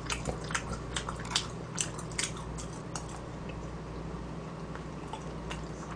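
A person chewing a dumpling close to the microphone, with short wet mouth clicks over the first three seconds, then only a faint steady low hum.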